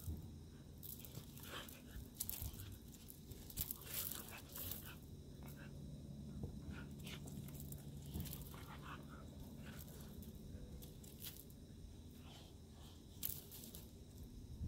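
Two Siberian huskies, an adult and a puppy, play-wrestling on gravel: scattered short crunches and clicks from their paws scuffling in the gravel.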